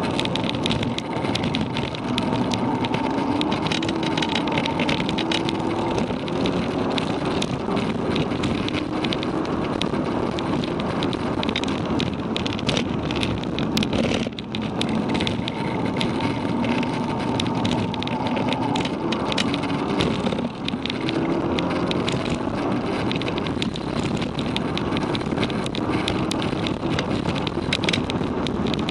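Cabin sound of a Volkswagen Golf Mk6 GTI's turbocharged 2.0-litre four-cylinder, APR Stage 1 tuned, driven hard: the engine note climbs in pitch under acceleration again and again, with brief dips about halfway and two-thirds through, over heavy steady road and wind noise.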